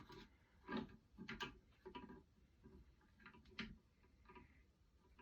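Faint scattered clicks and light knocks of small parts and a piece of wire being handled.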